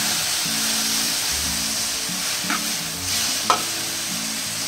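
Broccoli and garlic sizzling in hot oil in a wok, stir-fried with a metal spatula that scrapes and knocks against the pan, with a sharp clank about three and a half seconds in.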